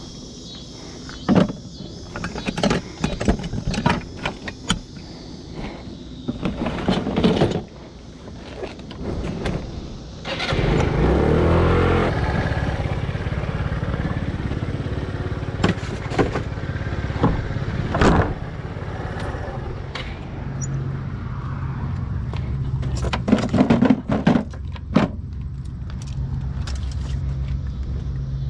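Clicks, knocks and rattling handling noises, then about ten seconds in a car engine starts and runs steadily, with a few more knocks over it.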